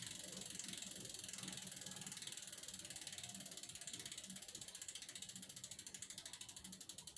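Rear hub pawls of a Cannondale aluminium touring bike ticking rapidly and evenly as the rear wheel coasts freely. The ticks slow and fade as the wheel spins down.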